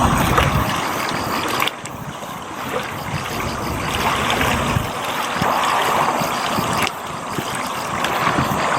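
A steady rushing noise with no distinct calls or tones, like flowing water or wind across the microphone.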